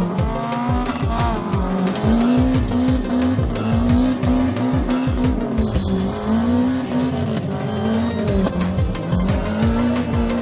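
Instrumental passage of a pop song with a steady electronic drum beat and a lead melody that bends up and down in pitch.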